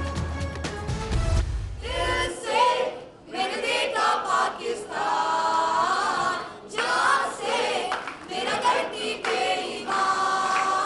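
A group of students singing a Pakistani national song (milli naghma) together through a microphone, with long held notes. It cuts in about two seconds in, replacing background music with a heavy bass line.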